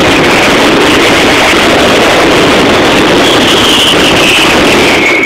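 Mascletà firecracker barrage: masses of firecrackers going off so fast that the bangs merge into one continuous, very loud crackling rattle, distorted through a phone's microphone. A whistling tone drifts in pitch over it in the second half.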